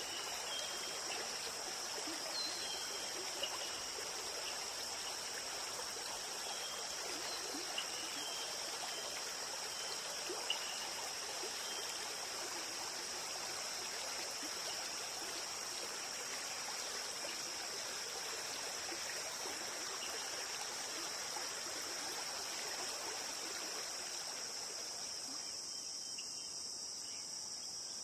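Steady nature ambience: an even rush like running water under a high, unbroken insect drone, with faint short chirps in the first half. Near the end the water rush thins and the insect drone carries on.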